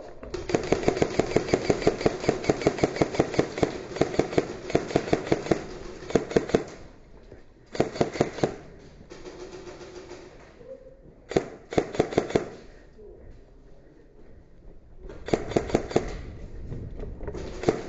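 Airsoft guns firing on full auto: a long rapid burst of about six seconds, then several shorter bursts, each a fast train of sharp clicks.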